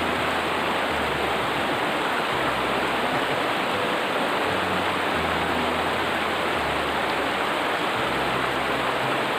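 Steady rushing of flowing water, an even hiss that holds at one level throughout.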